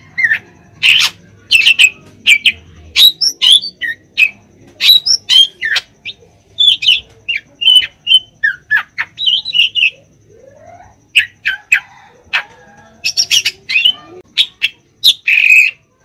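Caged drongo singing: a rapid string of loud, varied short chirps, whistles and squawks. The calls break off for about a second near two-thirds of the way through, then a rising whistle leads into more calls.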